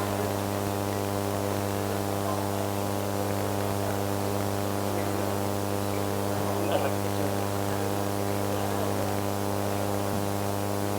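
Steady electrical mains hum from an amplified sound system: a low buzz with many overtones, holding unchanged.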